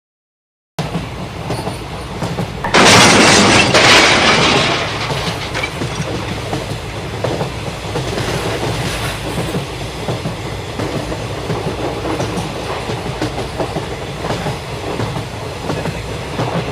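Train running along its track with a steady rattling rumble, starting just under a second in. About three seconds in, a louder rushing noise swells for a second and a half, then eases back into the running sound.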